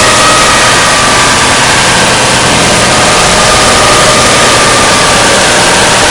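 Jump-scare sound effect: a loud, unbroken harsh noise like static, with faint wavering tones drifting through it and no sudden hit.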